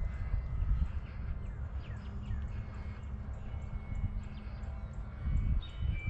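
Wind buffeting the microphone with an uneven low rumble, with faint bird chirps above it.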